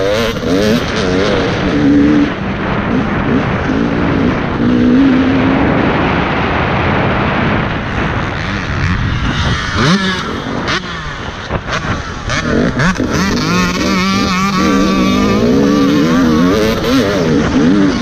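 Dirt bike engine revving up and down as the rider works the throttle through the trail, picked up by a helmet-mounted camera, with a few knocks around the middle.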